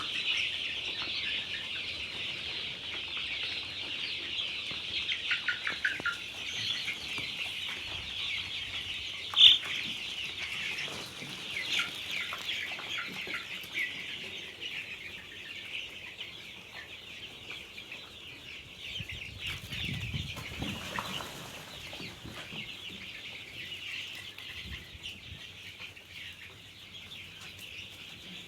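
Large flock of desi chickens cheeping and clucking in a dense, unbroken chatter, with one sharp, loud call about nine seconds in.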